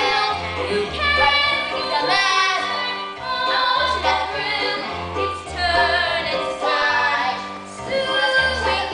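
Young performers singing a stage musical number over an accompaniment with a repeating bass line.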